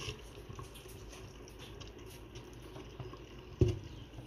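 Earthenware tagine lid being set in place, with one dull knock of clay on clay about three and a half seconds in, over the faint bubbling of the tagine's sauce simmering on a low gas flame.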